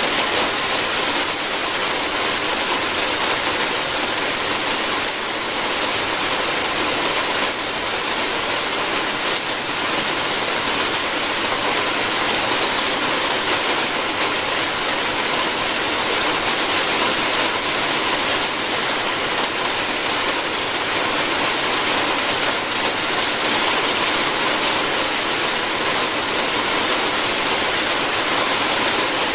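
Steady rain falling on a roof, an even hiss that stays level throughout.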